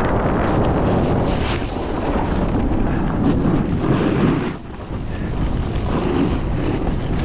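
Wind rushing over the microphone and a snowboard sliding and scraping across snow during a fast downhill run. The sound drops briefly about four and a half seconds in.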